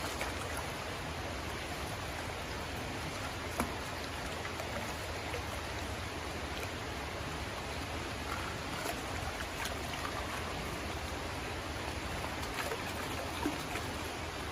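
Creek water running steadily, with a couple of faint sharp clicks.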